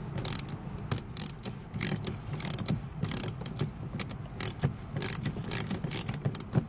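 Ratchet wrench clicking in quick runs of short strokes as it unscrews a glow plug from a Sprinter diesel's aluminum cylinder head.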